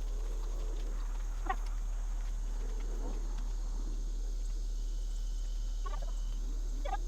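Chickens clucking: a short cluck about a second and a half in and a few more near the end, over a steady low hum.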